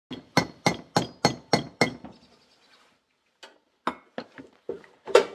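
Metal-on-metal tapping: a quick even run of six sharp, ringing clinks, about three a second, then a few scattered taps, the loudest near the end.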